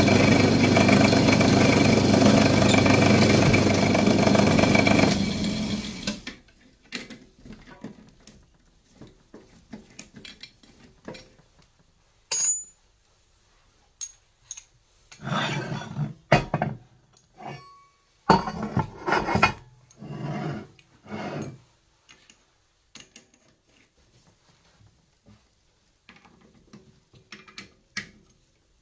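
Pillar drill running steadily while drilling through steel rectangular tube, switched off and winding down about five seconds in. Then scattered metal clinks and knocks as the drill chuck is loosened and a hole saw is fitted.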